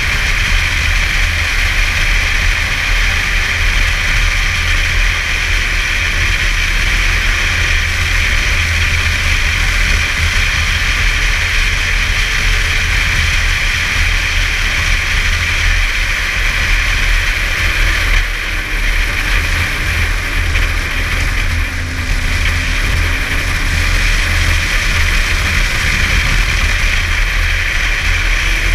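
Snowmobile engine running steadily while the sled rides along a packed trail, its note dipping briefly twice past the middle as the throttle eases.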